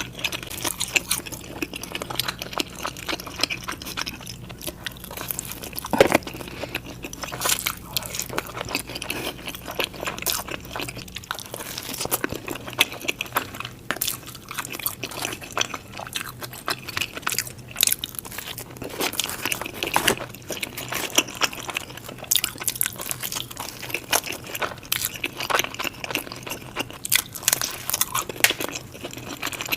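Close-miked pizza eating: steady chewing with many sharp crunching bites of crust, the loudest about six seconds in. A low background hum drops out about eleven seconds in.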